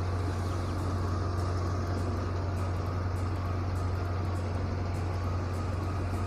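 Jangar (motorized pontoon car ferry) engine running steadily under way, a constant low drone.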